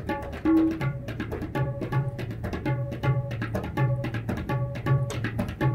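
Percussion ensemble playing: tabla with rapid strokes over marimbas and other mallet keyboards sounding a repeating chord pattern, with a steady low pulse underneath.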